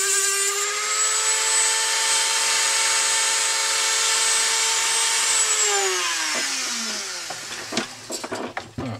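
Handheld rotary tool with a small cut-off disc: it grinds briefly against a plastic part, then runs free with a steady high-pitched whine. About five and a half seconds in it is switched off and winds down, its pitch falling away, and a few clicks and knocks follow near the end.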